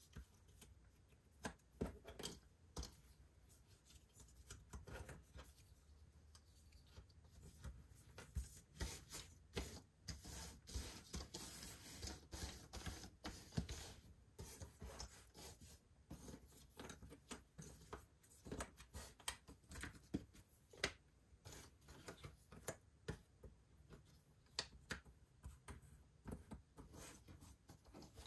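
Cardboard jigsaw puzzle pieces being handled: many small irregular clicks and short rubbing sounds, busiest in the middle stretch.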